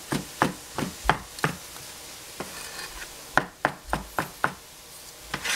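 A Chinese cleaver slicing shiitake mushrooms on a plastic cutting board, the blade knocking the board about three times a second. The chopping comes in two quick runs with a pause around two seconds in.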